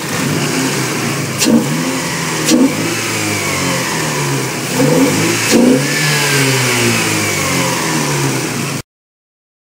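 Toyota 3S-GE Blacktop 2.0-litre twin-cam inline-four running and being revved, its pitch rising and falling, with four sharp snaps in the first six seconds. The sound cuts off abruptly near the end.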